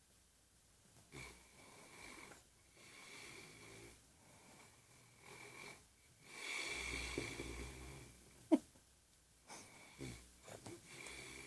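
A man snoring: a run of breaths about a second or two each with a thin whistling tone in them, the longest and loudest about six to eight seconds in. One brief sharp squeak about eight and a half seconds in.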